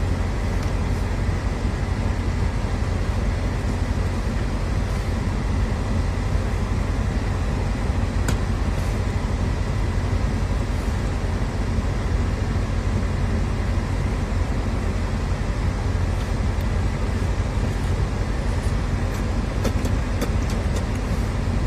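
Steady low rumble of a moving car, road and engine noise heard from inside, with a few faint clicks near the end.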